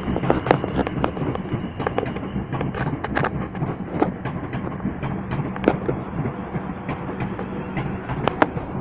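Class 444 electric multiple unit moving through the station: a steady hum with many scattered sharp clicks and knocks from the wheels on the track.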